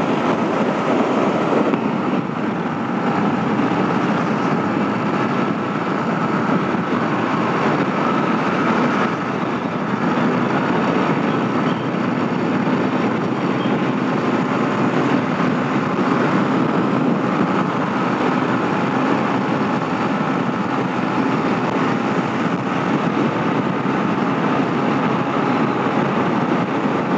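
Yamaha MT-15 motorcycle's single-cylinder engine running steadily at highway cruising speed, under a constant rush of wind over the microphone.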